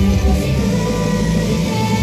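Loud rock music with guitar playing, a steady dense band sound.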